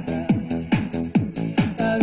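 Electronic dance music with a steady kick drum beat, a little more than two beats a second, under sustained synth chords.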